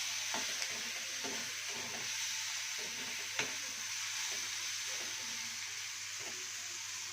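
Raw banana curry frying in oil in a kadai: steady sizzling as a spatula stirs it, with a sharp tap of the spatula on the pan about halfway through.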